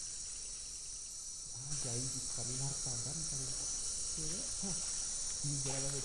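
Rainforest insects keeping up a steady, high-pitched chorus, a little louder from a couple of seconds in. A man's voice talks in short stretches over it.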